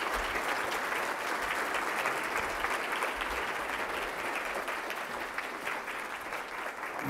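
Audience applauding, a dense patter of many hands clapping that holds steady and eases a little near the end.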